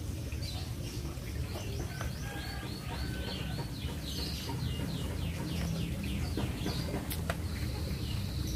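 A bird chirping: a quick run of short, falling high notes, several a second, over a steady low outdoor background. Two sharp clicks sound near the end.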